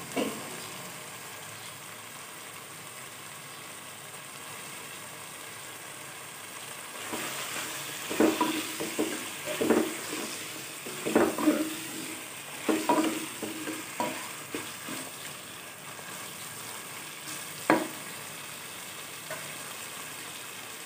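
Beef mince and green peas frying in a nonstick pan with a steady sizzle, at the stage where the peas are being roasted in with the keema. From about seven seconds in, a spatula stirs and scrapes through the mince against the pan for several seconds, with one more sharp knock a few seconds later.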